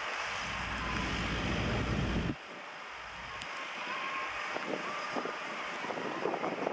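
Cessna 208 Caravan floatplane's PT6A turboprop at takeoff power, heard from a distance as a steady hiss with a faint whine, as the plane runs away across the water on its floats. Heavy wind rumble on the microphone cuts off suddenly about two seconds in.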